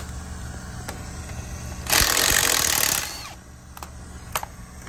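Power tool, most likely an impact wrench, run in one loud burst of about a second, over a steady low hum, with a few sharp tool clicks around it.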